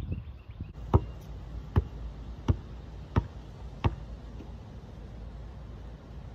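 A basketball being dribbled: five sharp bounces, evenly spaced a bit under a second apart, stopping about four seconds in.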